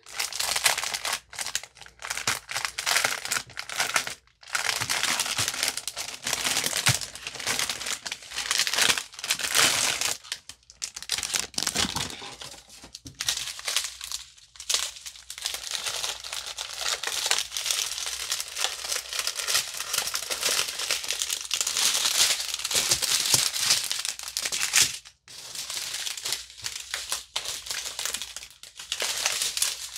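Clear plastic packaging crinkling and rustling as a bag of diamond painting drills is handled and unwrapped, in uneven stretches broken by a few brief pauses.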